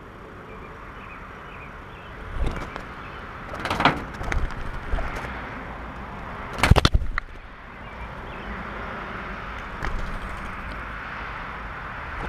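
A red squirrel's feet scrabbling and knocking on the asphalt-shingled shed roof: a scatter of sharp knocks, the loudest a quick rattle of clicks past the middle, over a steady outdoor hiss.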